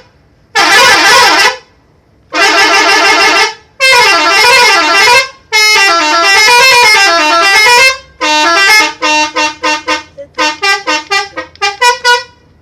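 Multi-tone telolet bus horn being played, as fitted to a Sindoro Satriamas bus: four long blasts of several tones at once, the later two warbling up and down in pitch. Then comes a quick run of short staccato toots in a tune-like rhythm.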